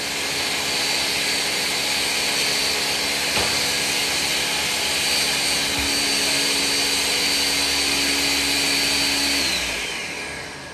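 Ninja 1500-watt blender running on its crush setting with fruit, ice and water: a loud, steady motor whine. About nine and a half seconds in it is switched off and the whine falls away as the motor spins down, because the contents have stuck and the jar needs a shake.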